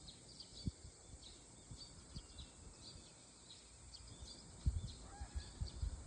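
Small birds chirping in short, high, repeated notes over an outdoor background, with irregular low thuds, the loudest a little before the end.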